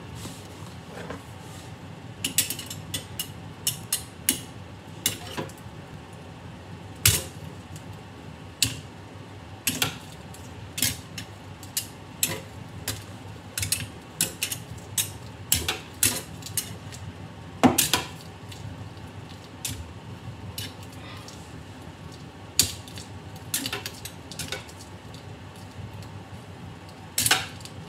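K'nex plastic rods and connectors on a spinning ceiling fan clattering. Irregular sharp plastic clicks and clacks come one to three a second, with a few louder knocks.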